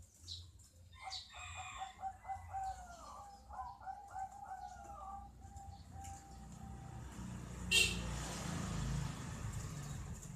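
Zebra dove cooing: a run of repeated, rolling coos lasting about six seconds. A sharp click follows, then a rushing noise with a low rumble.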